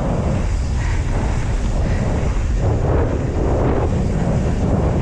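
Wind rushing and buffeting over an action-camera microphone on a mountain bike descending a dirt trail at speed, steady throughout, mixed with the rolling of the tyres on packed dirt.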